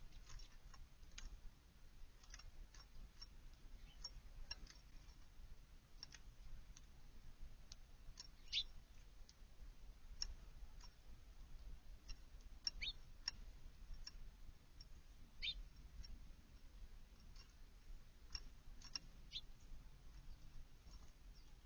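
Faint short bird chirps, single high notes dropping in pitch, every few seconds, over a steady scatter of small sharp clicks.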